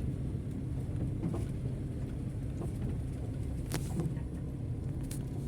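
Van engine and drivetrain running with a steady low rumble, with a few light knocks.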